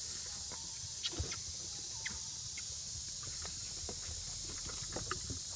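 Steady high drone of insects, with macaques giving a few brief squeaks and scattered sharp clicks and knocks as they feed, the loudest about a second in and again near the end.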